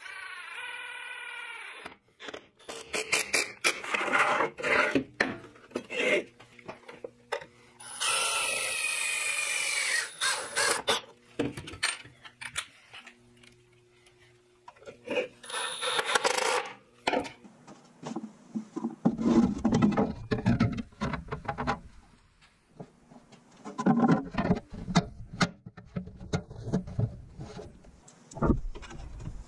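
Cordless impact driver running in several short bursts of a few seconds, driving screws into a galvanized duct elbow and sheet-metal dust hood. Between the bursts come knocks and clatter of the metal parts being handled and fitted.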